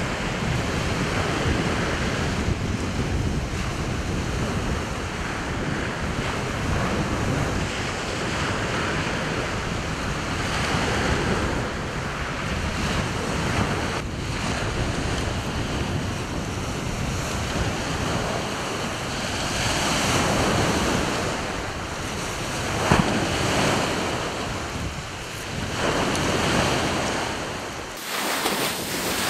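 Rough surf breaking and washing on a shingle beach, swelling and easing, with strong wind buffeting the microphone. One brief knock comes about two-thirds of the way through.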